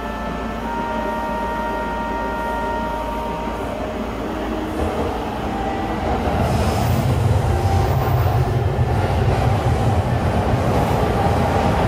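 E233-series electric train running past close by. Its running noise swells about six seconds in and stays loud.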